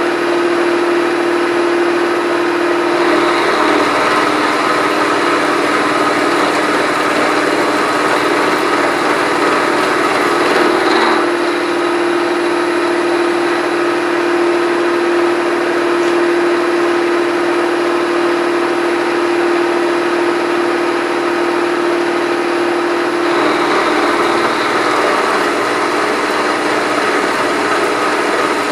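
Milling machine spindle running steadily while a half-inch end mill cuts along the side of a metal block. A low hum underneath comes in about three seconds in, drops out around eleven seconds, and returns near the end.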